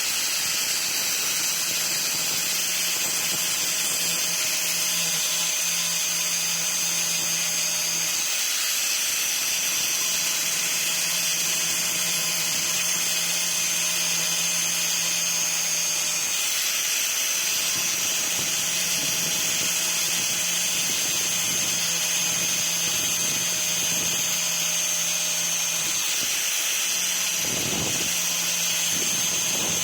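Power drill turning a brazed diamond core bit, running steadily with a high whine.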